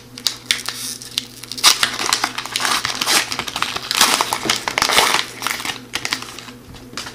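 Wrapper of an O-Pee-Chee hockey card pack being torn open and peeled off the cards by hand: a dense, crinkly crackling that builds after a second or so, is loudest a little past the middle and fades near the end.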